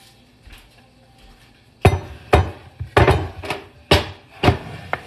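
Kitchenware knocking and clinking on a wooden butcher-block counter: about eight sharp, irregular knocks that begin about two seconds in.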